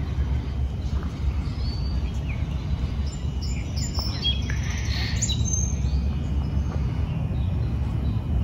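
Songbirds chirping and calling among the trees, with a cluster of calls about halfway through, over a steady low rumble.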